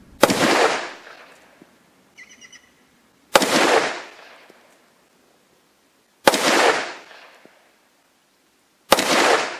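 Tokarev TT-33 pistol in 7.62x25 mm fired four single shots, roughly three seconds apart, each sharp report trailing off in a short echo over about a second.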